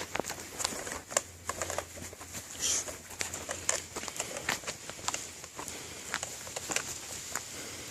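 Irregular light crackling and sharp clicks, scattered unevenly throughout, like rustling close to the microphone.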